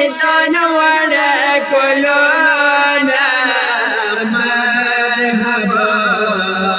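Male voice chanting a Pashto noha, a mourning lament, in long wavering held notes without clear word breaks.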